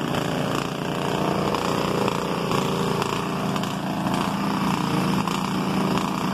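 Small garden-tractor engines running steadily under load as the tractors work through deep mud.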